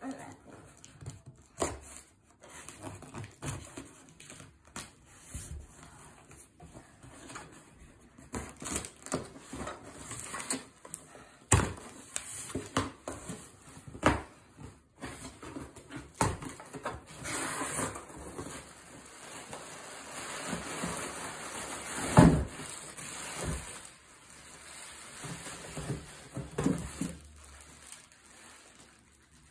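Unboxing handling noise: scattered knocks and clicks of a cardboard box being handled and opened, a stretch of rustling packaging, and one loud knock about twenty-two seconds in.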